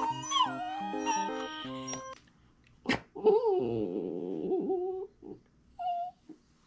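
Small long-haired dog whining in protest at being brushed: a whine that slides downward at the start, then a long wavering whine lasting nearly two seconds about halfway through, and a short whimper near the end.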